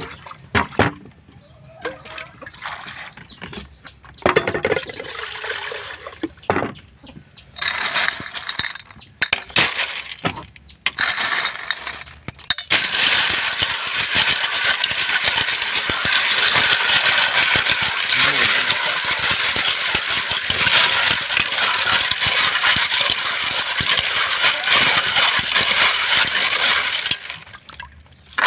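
River snail shells clinking against each other and against an aluminium pot as they are washed in water. Scattered clicks and short clatters come first. About halfway in, a hand churns and scrubs them in the water, and the sound becomes a steady rattling and swishing that stops near the end.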